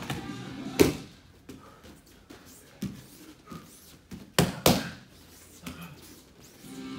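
Sharp slaps of strikes landing on a hand-held strike pad: one about a second in and two in quick succession past halfway, with fainter thuds and taps between.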